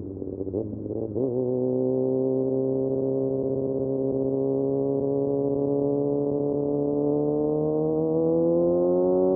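Kawasaki Ninja ZX6R's inline-four running through an M4 exhaust with the dB killer removed. After a couple of quick breaks in the note in the first second, the bike pulls steadily in one gear, its engine pitch climbing slowly and then more quickly near the end.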